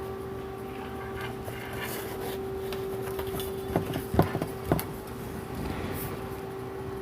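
Handling sounds of fabric being worked onto a plastic armrest panel: rustling, then a few sharp taps and clicks about four seconds in, over a steady electrical hum.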